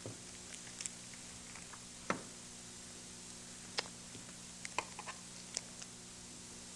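A few faint, sharp clicks and taps from a metal dissecting probe handling the specimen, over a steady low hum.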